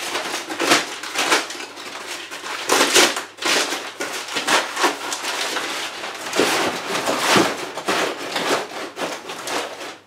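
Thick brown paper being crumpled and rustled by hand, in repeated crackling bursts, as it is layered into a cardboard box of potatoes.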